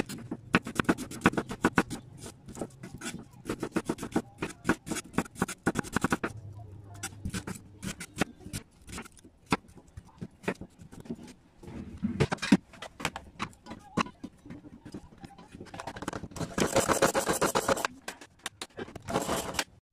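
Chef's knife chopping an onion on a wooden cutting board: a quick even run of cuts, about four or five a second, then slower single cuts, with a louder stretch of scraping near the end.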